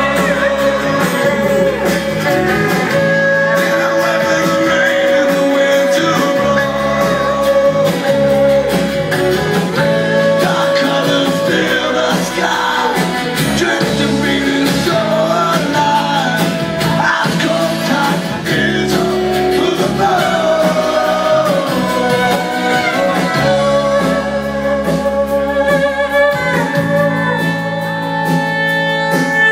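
A live folk-rock band playing a song: a man singing over strummed acoustic guitars and an upright bass, with a long held note running under the singing.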